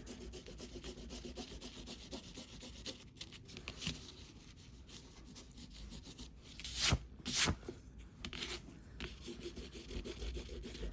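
A fine-tip pen scratching lightly on paper as short lines are drawn in, with two quick, louder strokes about seven seconds in.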